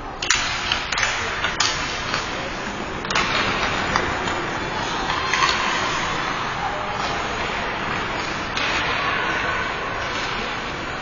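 Ice hockey play: skate blades scraping the ice and sticks clacking on the puck and on each other, with a sharp clack of sticks just after the faceoff and a few more knocks over the next few seconds. Voices from spectators or players run underneath.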